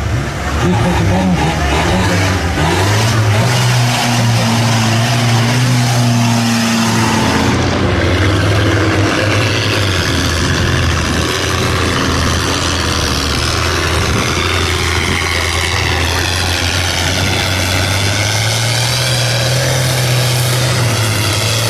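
Off-road 4x4 engines revving under heavy load as they plough through deep mud and water, the engine note rising and falling several times.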